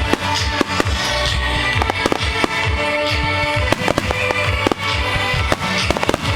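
Aerial fireworks shells bursting in quick succession with sharp bangs and crackling, over music played loudly through the show's loudspeakers.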